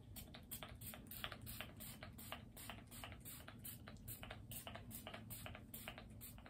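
A fine-mist pump spray bottle being spritzed rapidly onto a jacket, a quick string of short hissing sprays at about three to four a second.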